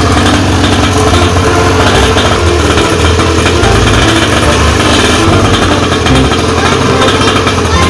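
Small engine of a mini pocket bike running steadily at idle.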